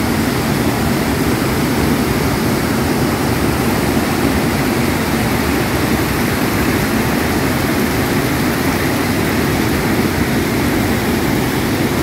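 A small waterfall and rapids: water rushing over rocks in a steady, unbroken roar of noise.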